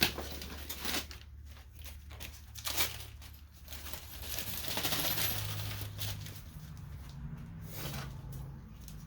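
Small metal parts clinking and clicking as a car's front end is taken apart, a few sharp clinks spread over the first three seconds. In the middle comes a longer scraping, rustling noise.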